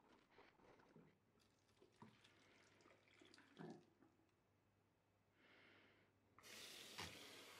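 Faint sponge scrubbing and small splashes in soapy water, then, about six and a half seconds in, a steady rush of soapy wash water poured out of a plastic tub into a sink drain, with one knock partway through.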